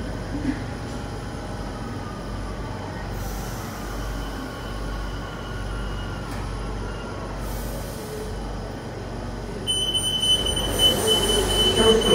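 Rome Metro train heard from inside the car while running: a steady low rumble with a faint motor whine that shifts in pitch. About ten seconds in, a high steady squeal starts and the noise grows louder.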